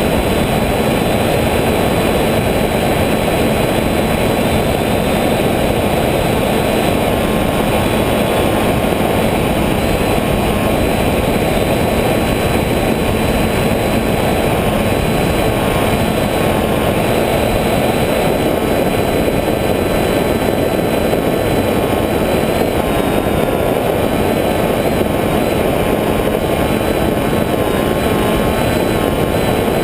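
Steady propeller and motor noise of a radio-controlled FPV aircraft in flight, mixed with rushing wind, recorded onboard, with a faint motor whine that shifts slightly in pitch.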